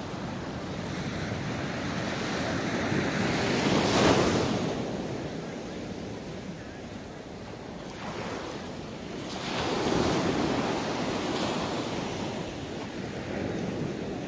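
Small waves breaking and washing up onto a sandy beach, the surf swelling twice about six seconds apart, with wind buffeting the microphone.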